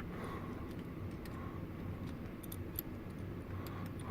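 Faint, irregular small metallic clicks of a T25 Torx bit and small wrench working at a screw in a cramped spot.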